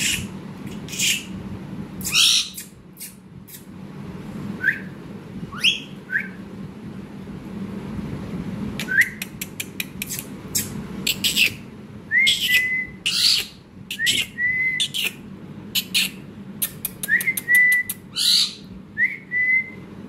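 Rose-ringed parakeet making short rising chirps and whistles, some notes held briefly near the end, with many sharp clicks in between.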